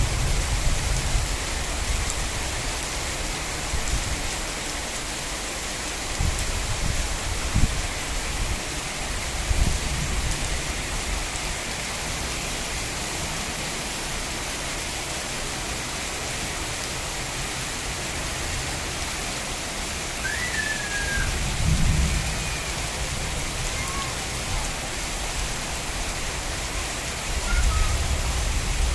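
Steady rain falling, a dense even hiss, with low rumbles of thunder swelling and fading several times, strongest near the start, about three quarters through, and near the end.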